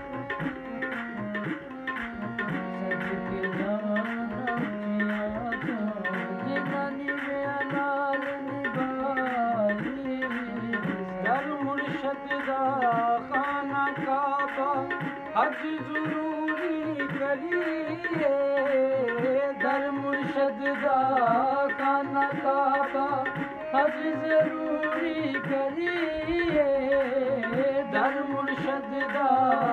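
Harmonium playing held notes under a wordless, sliding vocal line, with a steady percussion beat throughout: Punjabi Sufi kalam in qawwali style.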